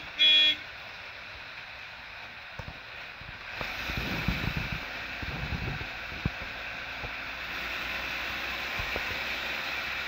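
Bus horn gives a short blast that ends about half a second in. Then the bus's engine and road noise run steadily in the cab, getting louder about three and a half seconds in, with a single knock near the middle.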